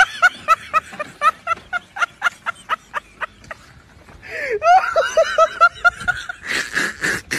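A person laughing in quick, short, repeated bursts, about four a second, which tail off, then break into laughter again about halfway through. Near the end come two loud, rushing noise bursts.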